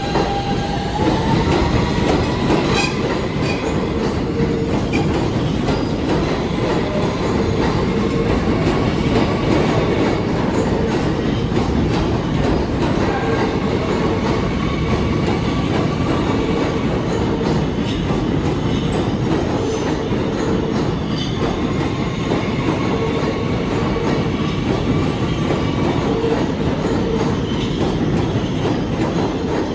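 New York City subway train running on the rails with a steady, loud rumble and a faint whine that rises in pitch about a second in.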